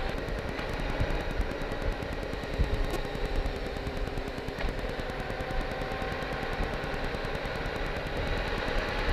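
Wind buffeting the microphone of a Honda Gold Wing motorcycle at riding speed, a rapid uneven rumble over the bike's engine and tyre noise.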